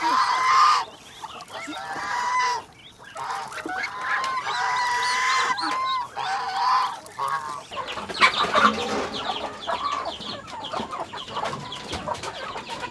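A mixed flock of chickens, geese and ducks calling together around the feed tub: clucking and honking, with many overlapping calls. The calls turn into a denser jumble of short calls after about eight seconds.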